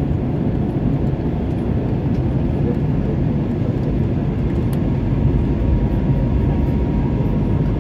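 Airbus A320 cabin noise on approach to landing: a steady low rumble of the engines and rushing air, heard from inside the passenger cabin.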